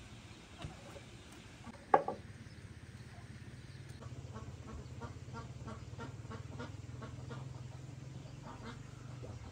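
Waterfowl calling in a quick repeated series from about four seconds in. About two seconds in, a single sharp wooden knock as a cutting board is set down on the mat.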